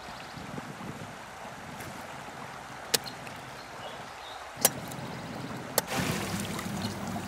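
River water lapping as a steady wash, broken by three sharp clicks, then louder splashing from about six seconds in as a man bathing waist-deep scoops water over himself.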